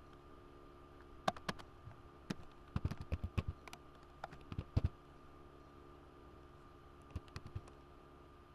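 Computer keyboard keys clicking in short bursts of typing, most of them in the first five seconds and a few more about seven seconds in, over a faint steady hum.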